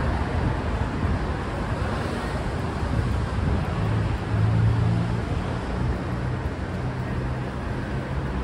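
Steady rumble of city street traffic, with a vehicle engine's low hum growing louder about halfway through.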